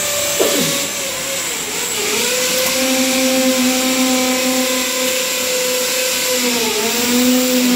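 A loud electric motor running steadily with a strong hissing rush, its pitch dipping briefly about two seconds in and again near the end.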